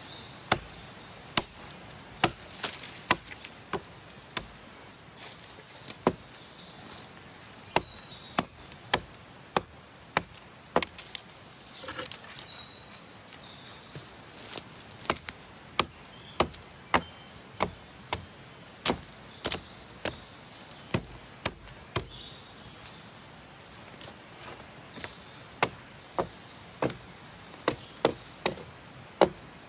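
Sharp chopping strokes of a blade biting into a fallen tree trunk, irregular, roughly one a second, in runs broken by a few pauses of a couple of seconds.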